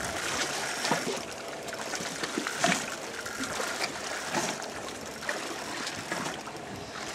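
Sea water washing against a boat's hull: a steady hiss with now and then a brief faint slap.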